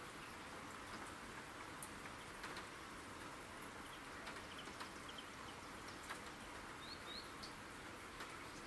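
Soft, steady rain with scattered drops ticking, and a few faint bird chirps in the second half.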